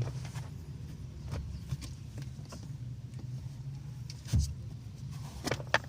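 Hyundai Eon engine idling steadily in the cabin, with scattered small clicks and a knock about four seconds in as hands handle the accelerator pedal cable to grease it.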